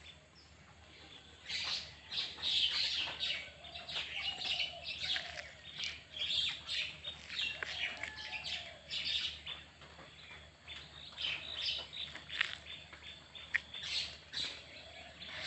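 Birds chirping: many short, rapid chirps in quick runs, with a few lower drawn-out calls mixed in.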